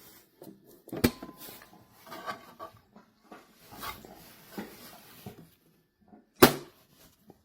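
Handling of a small metal pistol safe: two sharp clunks, about a second in and near the end, the second the loudest, with lighter clicks and rattles between them and a short beep right after the first clunk.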